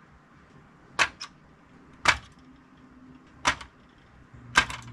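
Gauge needles of a Chevy Silverado instrument cluster snapping off their shafts as they are pried up with a small tool: four sharp clicks about a second apart, the first followed quickly by a smaller tick.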